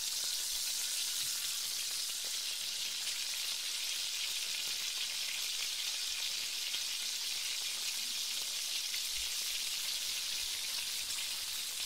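Eggs sizzling steadily in hot oil in a frying pan as they are scrambled, a high, even hiss.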